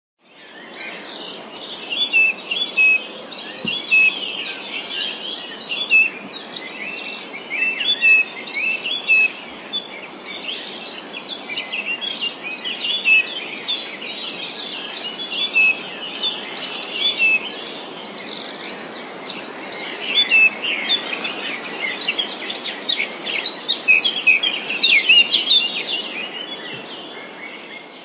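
Many small birds chirping and singing at once, a dense chorus of short overlapping calls and trills over a steady background hiss, fading in at the start.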